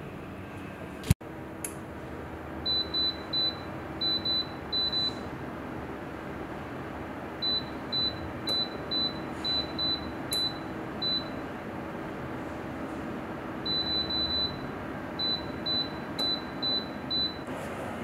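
Touch-button control panel of a 2200 W bathroom space heater beeping at each button press: short, high beeps of one pitch in three quick runs. A sharp click sounds about a second in, over a steady hiss.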